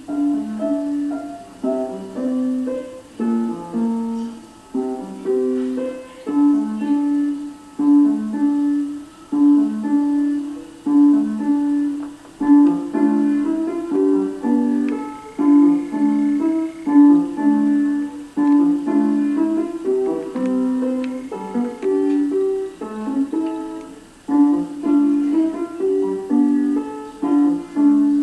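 Piano played solo: a piece of repeated phrases of single notes in the middle register, each phrase swelling and fading every second or so.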